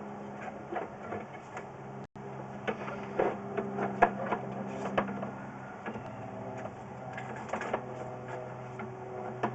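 Sewer inspection camera being pushed through a cast iron drain pipe: irregular clicks and knocks from the push cable and camera head over a steady low hum, busiest around the middle.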